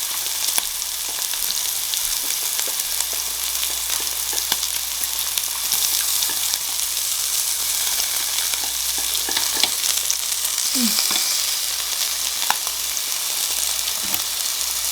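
Pork belly sizzling on a Korean barbecue grill: a steady hiss of frying fat with scattered small pops.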